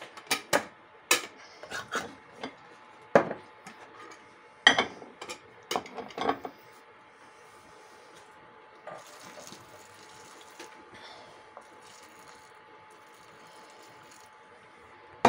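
Metal twist-off lid screwed onto a glass jar and jars handled on a plate: a run of sharp clinks and knocks over the first six or so seconds. Later, hot pickling brine poured through a plastic funnel into the next jar, a faint trickle.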